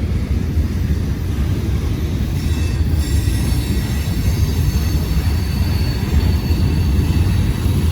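Freight train cars rolling past close by with a heavy, steady rumble. From about three seconds in, a thin high-pitched steel wheel squeal is added.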